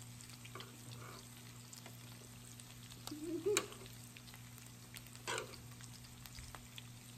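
Pork belly, marinated pork and king mushrooms sizzling on an electric raclette grill plate, with metal tongs clicking against the grill a couple of times, most sharply about halfway through and again a couple of seconds later.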